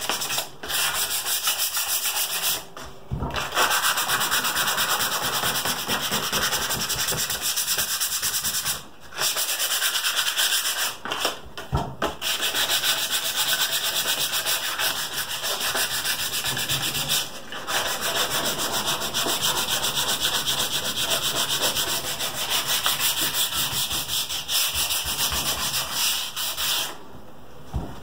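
A small wooden piece sanded by hand with sandpaper, a steady rapid back-and-forth rasping that stops briefly a few times.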